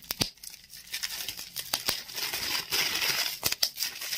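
Plastic bubble wrap crinkling as it is twisted and squeezed by hand to pop the bubbles, with a scattering of sharp snaps.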